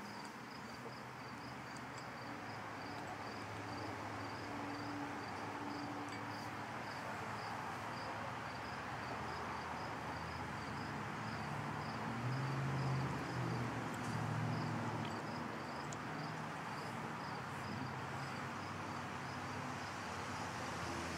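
Insects chirping steadily in a regular pulse, about three chirps a second, over a steady outdoor hiss. A low hum swells for a few seconds about twelve seconds in.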